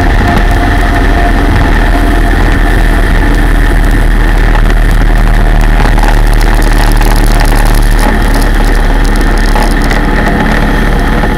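Motorboat running at speed: a steady, loud engine drone mixed with the rush of wind and water past the hull, easing slightly near the end.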